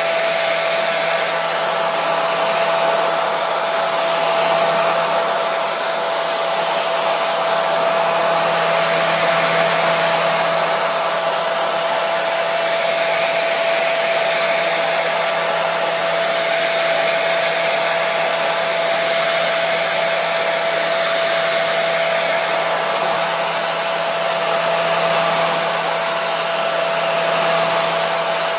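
Hair dryer running steadily: a constant rush of air with a steady motor whine and a low hum, unchanging throughout.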